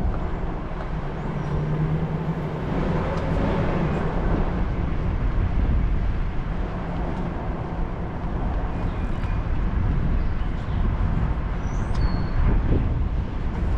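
Vehicle driving along, with steady engine and road noise.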